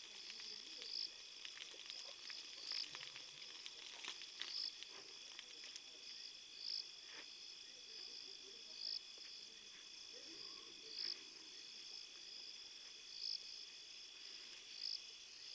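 Crickets and other night insects calling steadily in a high trill, with a louder chirp repeating about every two seconds. Over the first few seconds, faint twig snaps and crackles as an elephant pulls at and feeds on a bush.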